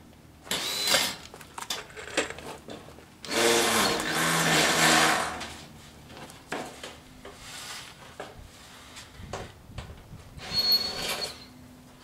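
Cordless drill run in three bursts, a short one, a longer one of about two seconds, then another near the end, backing screws out of corrugated metal roof panels. Short knocks of the metal sheets being handled come between the bursts.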